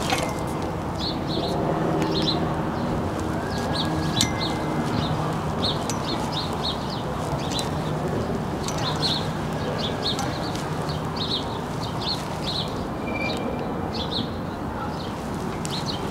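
Small birds chirping, short high chirps repeating several times a second, over a steady background hum.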